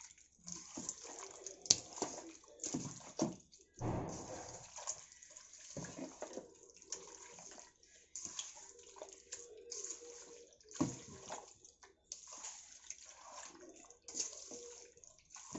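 A bare hand squishing chicken pieces through a thick, wet yogurt-and-spice marinade in a metal bowl: irregular wet squelching and sloshing.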